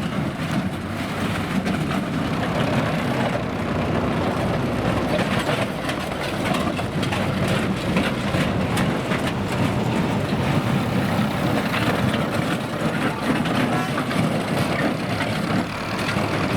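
Banger racing cars' engines running together, a dense steady noise with scattered knocks and clatter.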